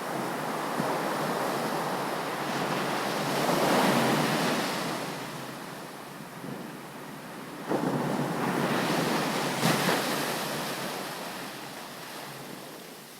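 Ocean surf breaking on a beach. The rush of water swells and ebbs, then two waves crash suddenly, one about halfway through and another two seconds later, before washing back down.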